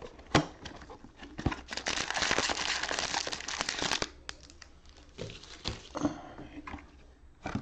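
Plastic shrink wrap crinkling and tearing as it is pulled off a cardboard trading-card box, loudest for about two seconds in the middle, amid clicks and knocks of the box and its foil packs being handled.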